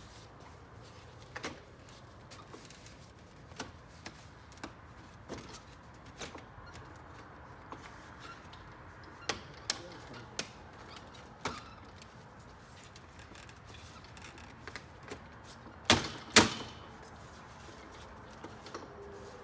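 Plastic clicks and knocks from a Toyota Camry upper grille being handled and set into the front bumper cover, its anchors going into the holes. Scattered single clicks, with two louder snaps about half a second apart near the end.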